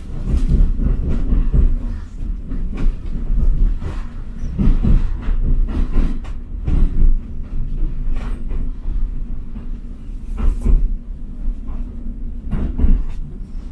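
A passenger train running along the track: a steady low rumble with irregular knocks and clatter from the wheels over the rails.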